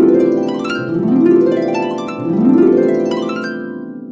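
A musical transition effect: three rising glissandos of plucked strings, one after another, the last one ringing and fading out.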